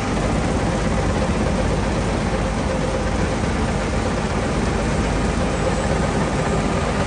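John Deere S785i combine harvester running steadily as it cuts wheat, a continuous engine and machinery drone.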